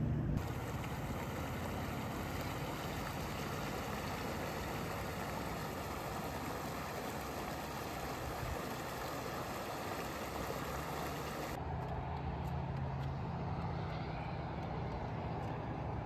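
Creek water rushing and splashing over a low rock weir. About 11 to 12 seconds in it cuts abruptly to a quieter sound with a low, steady rumble underneath.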